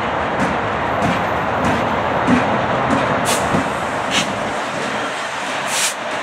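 Canadian Pacific diesel freight locomotives passing close by, engines giving a steady rumble over the noise of wheels on the rails, with a series of short sharp clicks every second or so.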